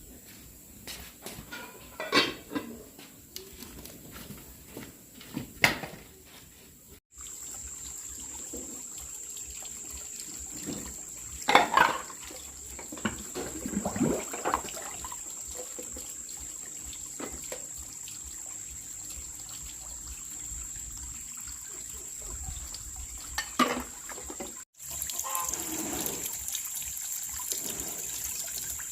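Water splashing and trickling, with a few sharp knocks.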